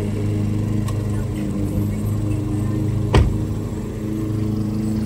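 A 2016 smart car's small three-cylinder engine idling with a steady low hum, and a single short thump about three seconds in.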